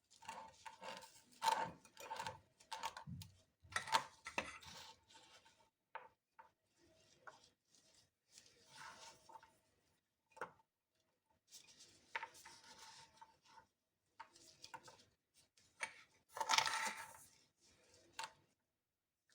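Kitchen handling sounds of food being prepared in a glass jar: irregular rubbing and scraping with a few sharp clinks, coming in separate short bouts with pauses between.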